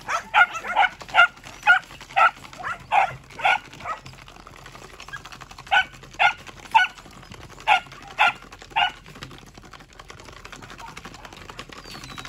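Belgian Malinois puppies barking in short, sharp barks, about three a second for the first few seconds, then after a pause about six more spaced roughly half a second apart.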